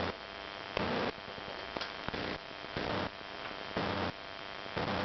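Steady electrical hum and static hiss, with a soft swell of noise about once a second.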